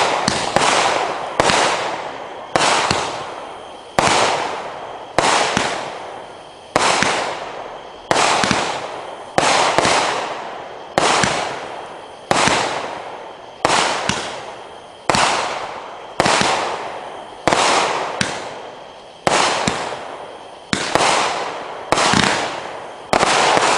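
Consumer firework cake, Hardcore Pyro's Assassin series 'Snake style', firing a steady string of aerial shots, about one every second and a half. Each shot is a sharp report with a hissing tail that fades away over about a second.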